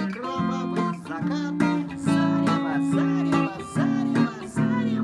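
Ibanez electric guitar played with a pick: picked chords and short riff phrases, some chords left ringing for a second or more.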